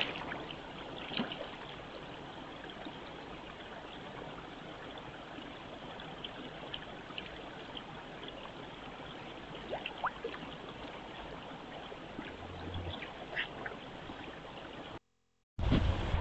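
Steady low hiss of pond ambience picked up by a trail camera's microphone, with a few faint short calls and ticks scattered through and a thin rising whistle about ten seconds in.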